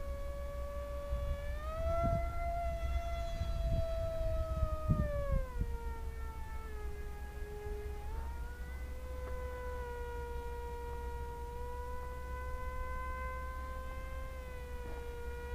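Electric brushless motor and two-blade propeller of an RC delta flying wing whining in flight. The pitch rises about two seconds in, falls around five to six seconds, climbs again near eight seconds and then holds steady as the throttle changes. A low rumble runs underneath.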